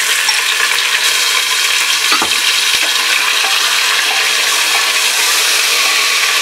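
Raw mutton pieces sizzling in hot oil with sliced onions in a pressure cooker, stirred with a wooden spoon that knocks against the pot now and then, most clearly about two seconds in.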